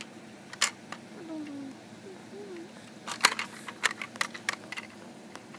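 Scattered sharp clicks and taps: a single one early, then a quick cluster of them about three to four and a half seconds in, over a faint voice in the background.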